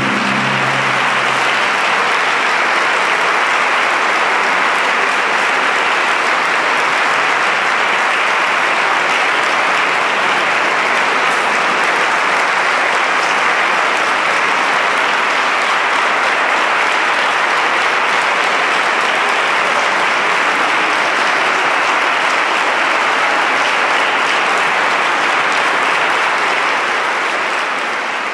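Audience applauding steadily, with the last low note of the band's final chord dying away in the first second or two. The applause begins to fade near the end.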